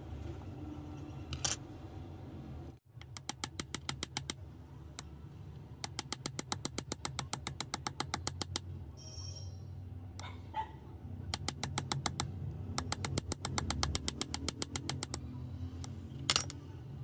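Fine copper jumper wire being worked against the jaws of steel pliers, making rapid runs of small scraping clicks of about eight a second, in four bursts over a steady low hum.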